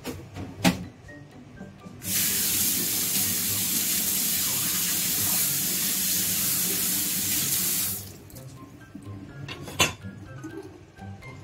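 Kitchen tap running hard into a stainless steel sink for about six seconds while the sink is scrubbed under the stream, starting and stopping abruptly. Two sharp knocks stand out, one just under a second in and one near the end.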